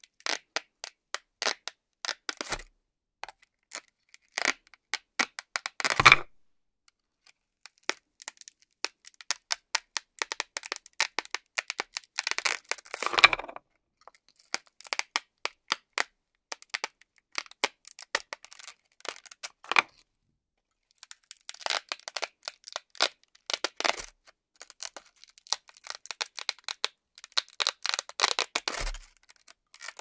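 Velcro hook-and-loop fastening peeled apart as velcro-backed toy food pieces are pried off a toy frying pan with a toy knife. It makes a series of short crackling rips and scattered sharp ticks, with the longest, loudest rips about 6, 13 and 28 seconds in.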